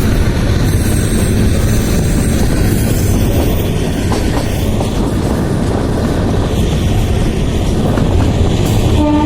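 Kalka–Shimla narrow-gauge toy train running, a steady low rumble with the clatter of wheels on the rails. The train's horn starts sounding near the end, one steady held note.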